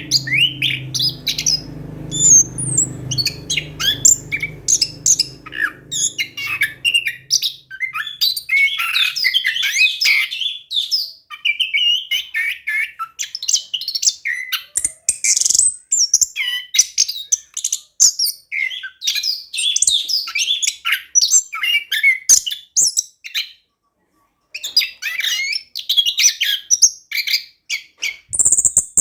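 Orange-headed thrush singing continuously in a fast, varied stream of chirps and trills, with a brief pause about 24 seconds in. A low hum sits under the song for the first seven seconds.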